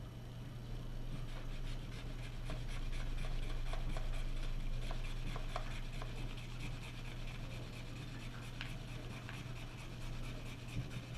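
A scratch-off game card being scratched: quick, repeated scraping strokes on its coating.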